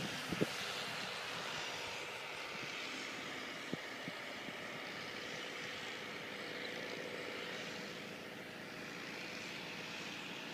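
Small fixed-wing UAV's propeller motor running steadily as the drone flies off, its hum fading a little toward the end.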